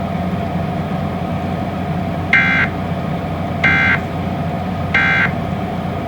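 Three short, identical electronic data bursts about 1.3 seconds apart, the Emergency Alert System end-of-message code that closes a broadcast alert, over a steady low hum.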